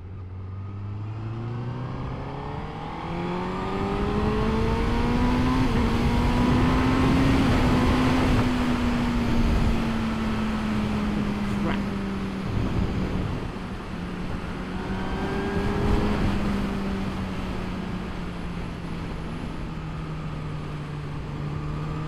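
Honda CBR1000RR Fireblade SP2's inline-four engine accelerating out of a roundabout, its pitch rising for about seven seconds, then easing back to a steady cruise. Wind rushes over the bike throughout, loudest at the top of the acceleration.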